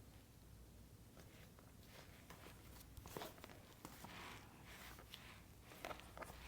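Near silence with a few faint rustles and soft clicks, around three seconds in and again near the end.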